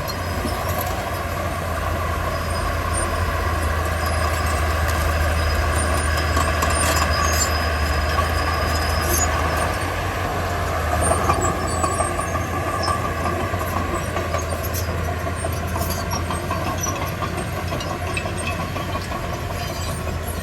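Komatsu D31P bulldozer's diesel engine running steadily under load while pushing stone, with a few scattered knocks and a slightly louder moment about eleven seconds in.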